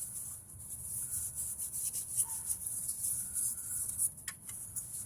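A rag rubbing and wiping a dirty brake caliper part clean, in irregular short strokes.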